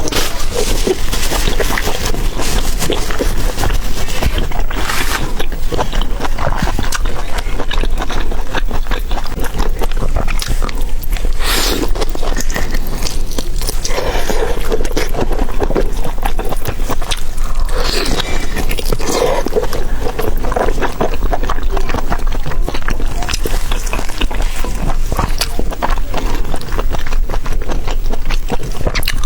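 Close-miked eating: steady chewing and biting with many small wet clicks.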